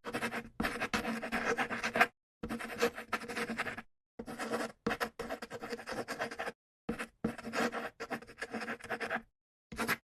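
Scratchy rubbing noise in a run of short bursts, each breaking off abruptly into dead silence.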